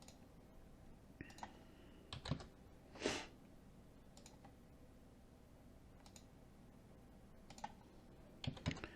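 Faint, scattered clicks of a computer mouse and keyboard, a few single clicks and small clusters spread over several seconds, with a short soft hiss about three seconds in.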